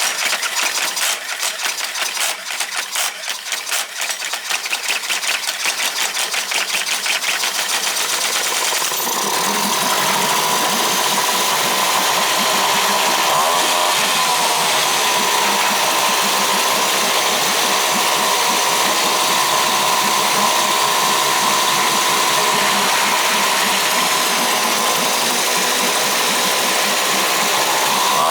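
Two-stroke outboard motor running in a test barrel, just coaxed back to life after a fuel-starvation no-start. It fires rapidly and unevenly for about the first nine seconds, then settles into a steadier, louder run.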